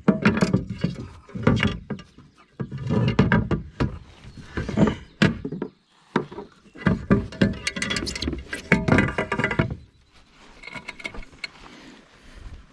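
Irregular knocking and clattering in dense clusters of sharp clicks and heavier thuds, typical of handling a landed bass and gear on board a kayak. It dies down about ten seconds in.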